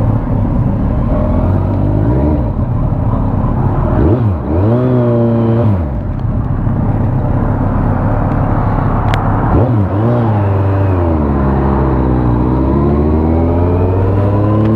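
Motorcycle engine accelerating away through the gears, its pitch climbing and then dropping back at each gear change, several times over, heard from the rider's seat.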